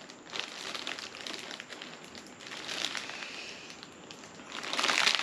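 Foil letter balloon crinkling and crackling as it is handled and a straw is worked into its valve, then breath blown through the straw to inflate it, loudest near the end.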